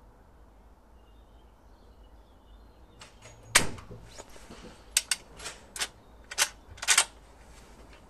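A single shot from a Winchester 1892 lever-action rifle in .44-40, about three and a half seconds in, with a short ringing echo. About a second and a half later come six or seven sharp metallic clacks as the lever is worked down and back up to eject the case and chamber the next round.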